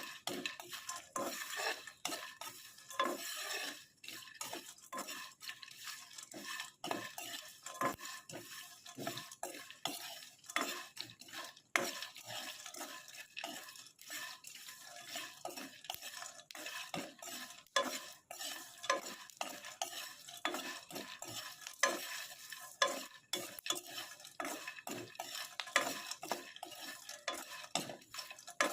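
Split kabok (Irvingia malayana) seeds being dry-roasted in a pan, stirred continuously with a spatula: a steady run of irregular scraping and rattling clicks as the seeds shift against the pan.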